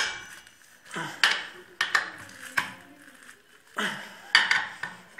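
Hand tools clanking and clinking on metal mower-engine parts during assembly: about seven sharp, irregular metallic knocks, each with a short ring.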